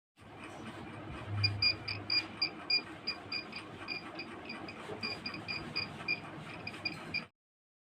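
High-pitched buzzer of a homemade earthquake-detector alarm model beeping in short, uneven pulses, about three a second, over a rattling, clattering background: the alarm going off.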